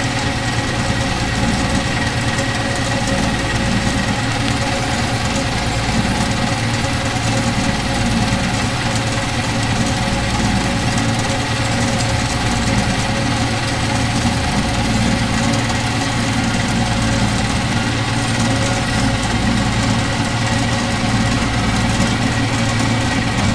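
Metal-cutting horizontal band saw running empty on a dry test run, coolant pump off: its three-phase motor and drive give a steady hum with a steady high tone as the blade runs and the saw bow slowly lowers under its feed.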